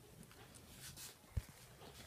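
Faint handling noise: light rustling and small ticks, with one soft low thump a little past halfway.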